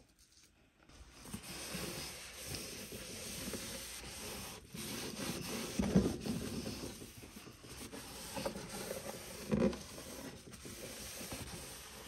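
A cloth or sponge scrubbing and wiping the inside of a freezer: a continuous rubbing, with a louder knock about halfway through and another a few seconds later.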